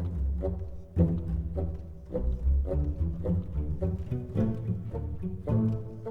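Background music with low bowed and plucked strings, rhythmic notes about twice a second.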